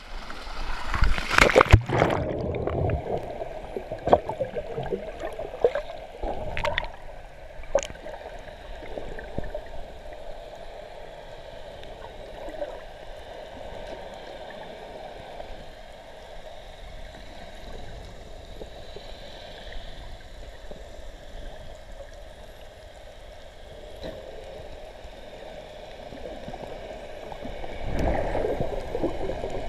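A splash as a swimmer plunges into the sea about a second in, then steady muffled gurgling and bubbling heard from underwater, swelling again near the end.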